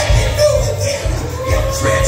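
Live gospel music with a steady drum and bass beat and a long held note.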